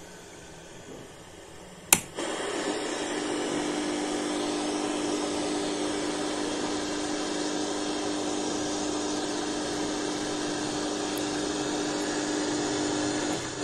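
A sharp click as the FM radio receiver is switched on, then its speaker gives a loud, steady hiss of radio static with a steady low hum running through it.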